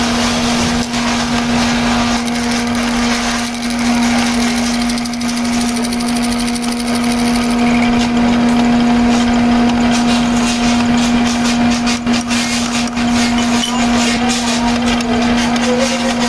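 Metal lathe running with a steady hum, its cutting tool turning down a small wooden pool cue part, with rough, crackly cutting noise over the motor.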